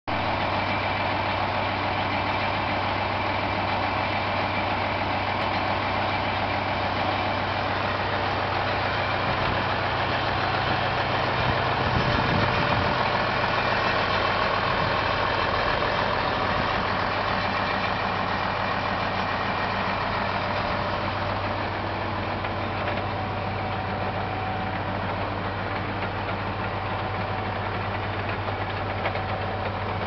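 Case IH 7130 Magnum tractor's six-cylinder diesel engine idling steadily.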